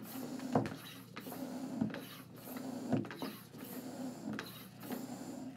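Electric tire pump running steadily with a motor hum, inflating a motorcycle airbag through an adapter to test that the airbag holds air.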